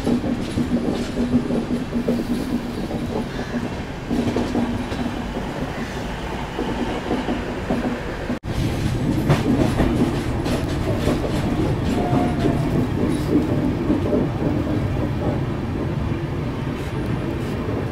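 Chennai–Bengaluru Double Decker Express coach running on the track, its wheels clicking over the rail joints under a steady low hum. There is a short break about eight seconds in, after which the running noise is louder.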